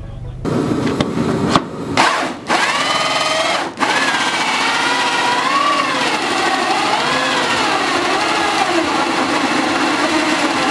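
Corded electric drill running under load with a round attachment pressed against the fender, its motor whine wavering up and down in pitch as it bogs and recovers. There are a few sharp knocks in the first few seconds.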